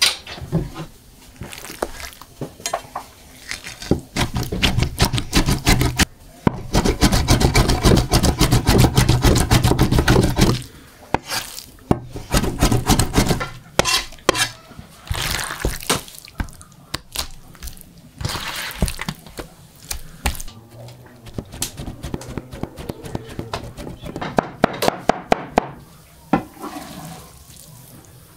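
Raw meat pieces being handled on a wooden board and in a plate: wet squelching and slapping with many knocks and clicks, and a dense stretch of squelching for about four seconds near the middle.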